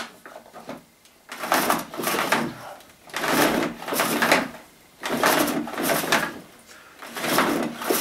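Red canister vacuum cleaner's power cord yanked out of its reel again and again like a pull-start: about five rattling, whirring pulls roughly a second and a half apart, after a sharp click at the start.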